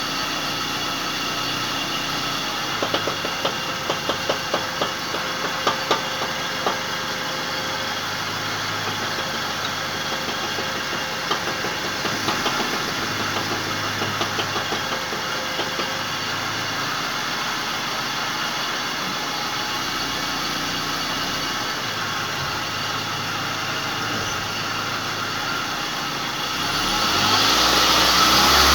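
Car engine running with the drivetrain turning, with two spells of irregular ratchet-like knocking, about two knocks a second; the owner suspects a failing right drive shaft (CV joint). Near the end the engine revs up.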